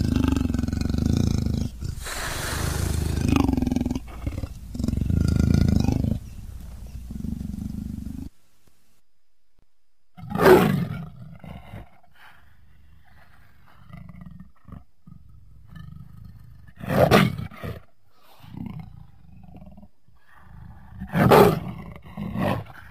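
Leopard calling: a dense run of low, rough roars and growls for about eight seconds that cuts off suddenly, then three loud roars several seconds apart with quieter grunts between them.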